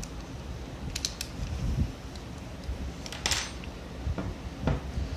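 Small metal parts of a 925 blank pistol clicking and scraping as they are worked loose by hand during disassembly: a quick run of clicks about a second in, a short scrape a little past three seconds, and a couple of single clicks near the end.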